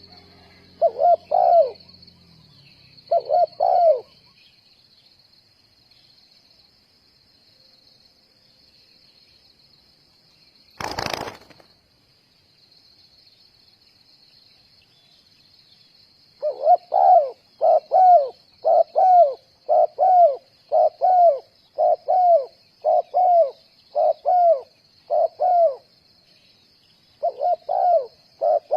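Spotted doves cooing: two short phrases near the start, then a long, evenly repeated run of coos, somewhat faster than one a second, through the second half. A single sudden loud thump comes about eleven seconds in, over a faint, steady, high-pitched drone.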